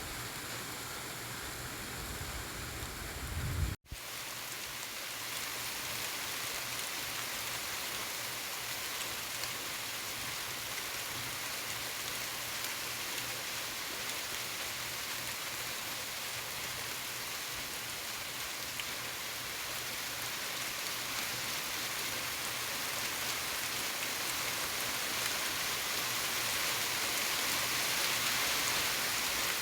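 Steady rain falling in an even hiss, with a brief break about four seconds in where the recording cuts. It grows slightly louder near the end.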